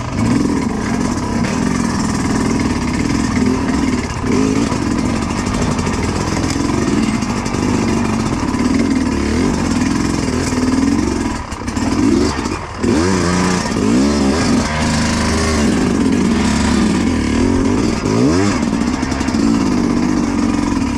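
Dirt bike engine revving up and down over and over, the throttle opened and closed in quick bursts, with a couple of brief drops in the engine note about halfway through.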